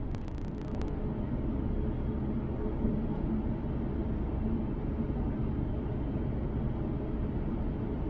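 Airbus A350-900 cabin noise before takeoff: a steady low rumble of the engines and airframe heard from inside the cabin, with a short run of light clicks in the first second.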